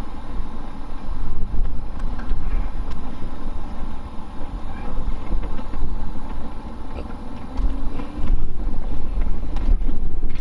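Wind buffeting the microphone: a loud, uneven low rumble that swells in gusts, a couple of times.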